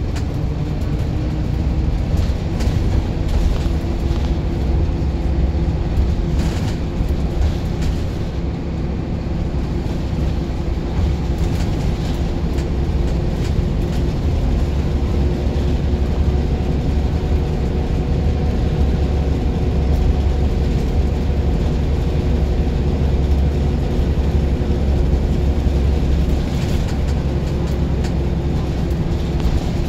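Single-deck bus under way, heard from inside the passenger saloon: the engine and drivetrain give a steady low rumble with a held engine tone, and a few brief clicks come from the cabin.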